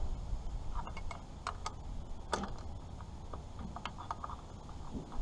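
Irregular small metallic clicks and taps of a wrench on the mounting bolts of a Farmall H carburetor being fitted.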